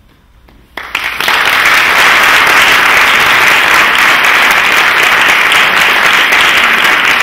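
An audience breaks into applause about a second in, after a moment of quiet, and the clapping then holds steady and loud.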